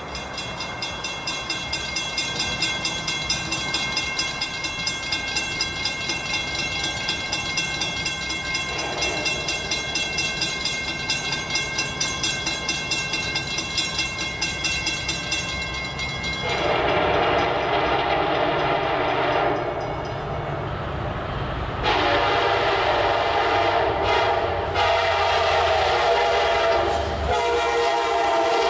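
Grade crossing bell ringing rapidly over the low rumble of an approaching diesel train. About halfway through, the lead F40PH locomotive's air horn sounds in four long blasts for the crossing, and the last blast drops in pitch as the locomotive passes.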